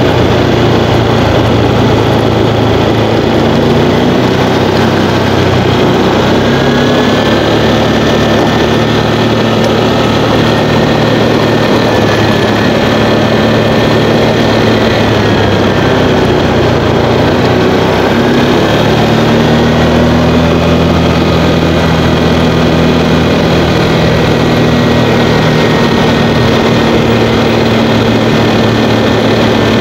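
Motorcycle engine running while riding, its pitch shifting up and down several times.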